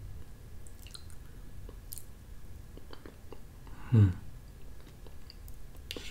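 Quiet close-up eating sounds of a creamy yogurt-like snack, with small clicks of a metal fork against the cup. About four seconds in comes a short closed-mouth "mm" hum that falls in pitch, the loudest sound.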